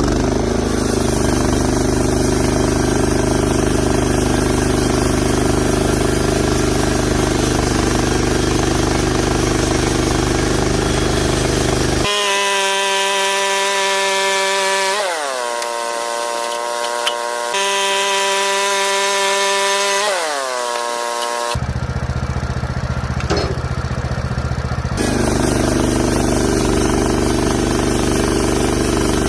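Sawmill engine running steadily while squaring up a timber beam. The sound changes abruptly several times, and the engine's pitch falls away twice partway through.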